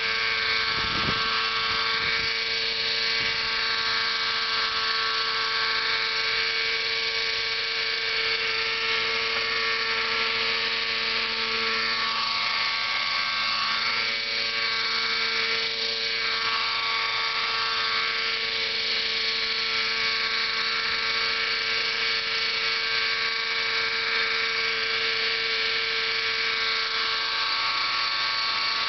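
Glow-fuel (nitro) engine and rotors of a large RC helicopter hovering, giving a steady, high-pitched engine note. The pitch sags briefly about halfway through, then returns.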